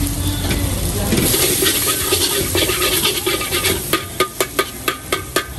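Mee goreng noodles sizzling in a wok as a metal ladle stirs and scrapes them. From about the middle on, the ladle strikes the wok in quick, regular clanks, about five a second.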